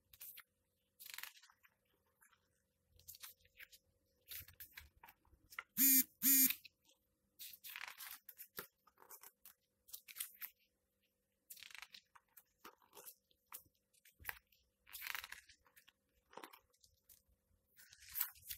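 Pages of a large hardcover comic book being turned by hand, a series of papery rustles and slides. About six seconds in, two short, loud pitched sounds come close together and stand out as the loudest thing.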